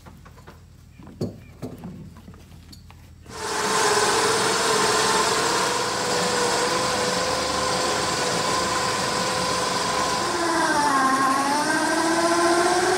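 Electric winch motor running with a steady whine and hiss, starting about three seconds in, after a couple of knocks. Its pitch sags and recovers near the end.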